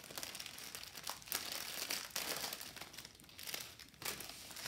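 Small plastic zip-lock bags of diamond-painting drills crinkling as they are handled, in irregular rustles.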